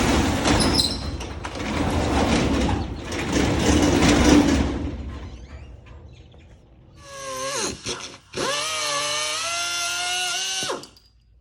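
A hand-held power tool in use: three rough bursts of working noise, then its motor whirs briefly, winds down, and runs at a steady speed for about two seconds before stopping.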